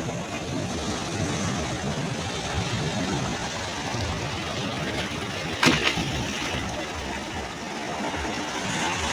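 Ocean waves washing and rumbling on a shore in a steady rush of noise. A brief sharp knock stands out about five and a half seconds in.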